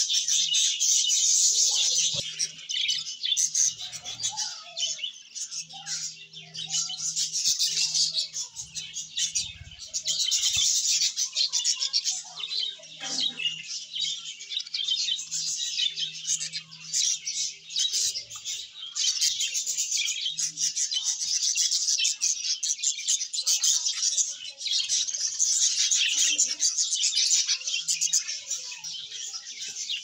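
Parakeet chicks in the nest calling nonstop, a dense high-pitched chirping that swells and dips every few seconds.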